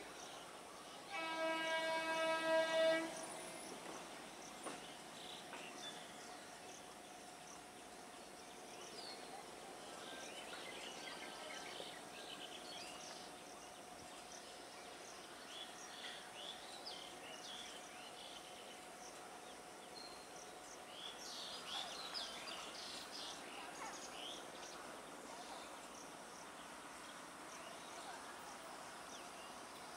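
Electric multiple-unit local train's horn sounding one blast of nearly two seconds, about a second in. After it, a quiet outdoor background with scattered short high chirps.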